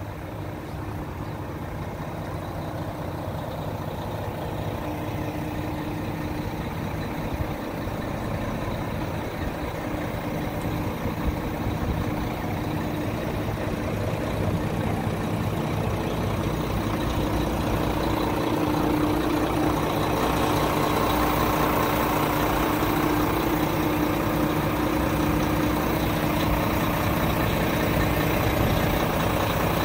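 A Renault Lander 460 truck's 11-litre six-cylinder diesel idling steadily, growing gradually louder through the first two-thirds and then holding steady.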